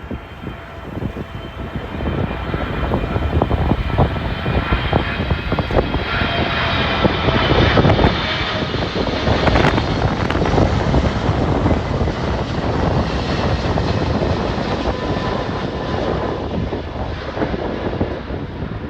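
Boeing 777-300ER's twin GE90-115B turbofans passing on approach to land. The noise builds to its loudest about eight seconds in and slowly eases off, with a high engine whine that falls slightly in pitch. Gusty wind buffets the microphone throughout.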